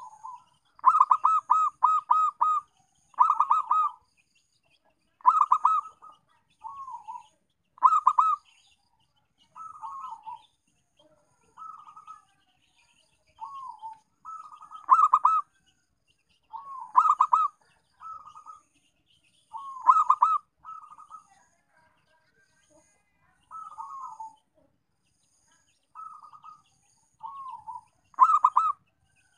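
Zebra dove (perkutut) cooing: short phrases of quick stuttered coos, repeated every second or two with silent gaps, louder phrases alternating with softer ones. It is the kind of call used as a lure to set other zebra doves calling.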